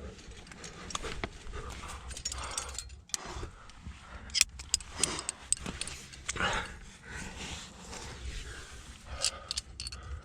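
A climber's heavy breathing and grunts of effort, with metal climbing gear clinking in sharp clicks, the loudest about four seconds in.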